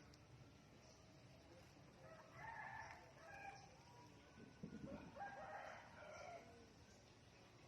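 A rooster crowing twice, faintly: one crow a couple of seconds in and a second, longer crow about a second after it ends.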